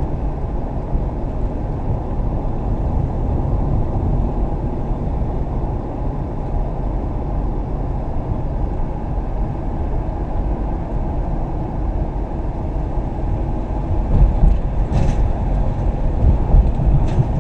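Steady road and engine rumble inside a moving van's cabin, with two brief clicks or knocks near the end.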